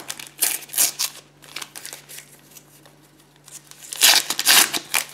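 A plastic trading-card packet being crinkled and torn open by hand: a few sharp crackles near the start, then a louder burst of crinkling and tearing about four seconds in.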